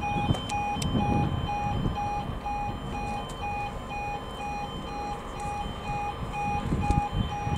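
Railway level crossing warning alarm sounding a steady, evenly repeating pulsed two-tone beep, over a low rumble.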